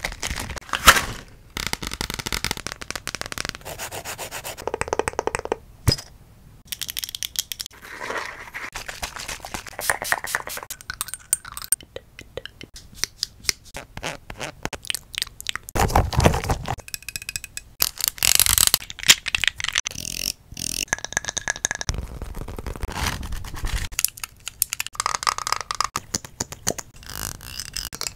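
A fast run of close-miked ASMR trigger sounds, switching every second or two between scratching, tapping and rubbing. The objects include a rubber glove, a plastic lotion tube and a wooden spoon, worked right at a fluffy-covered microphone.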